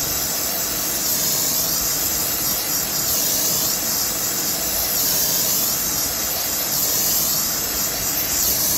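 Steady hiss of a gas torch flame heating a dent in an air-pressurised two-stroke expansion chamber to push the dent out.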